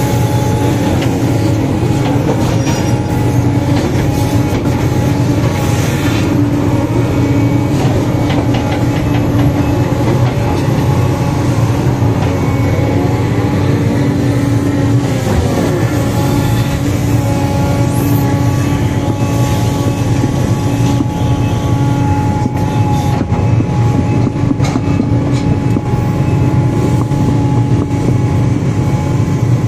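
Sumitomo 490 crawler excavator's diesel engine and hydraulics running steadily under digging load, heard from the cab, with a steady whine over a deep rumble. Scattered clunks and scrapes come from the bucket working soil and stones.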